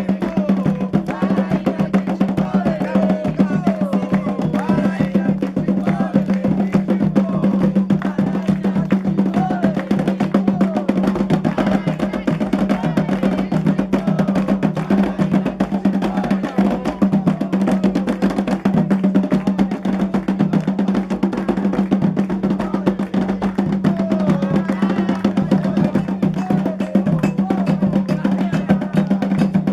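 Candomblé ritual music: fast, steady hand drumming with a sharp clacking percussion part and voices singing over it.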